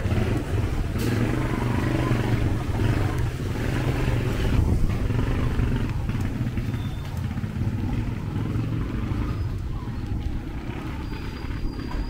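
Street traffic with motorcycle and car engines running close by, a steady low rumble that swells briefly about four seconds in and then eases off.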